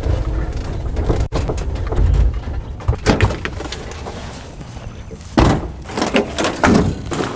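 Door and tailgate of a small electric pickup truck: a low rumble in the first two seconds, a few light clicks, then the door banging shut about five and a half seconds in, followed by two metallic clanks as the tailgate latch is released and the gate drops.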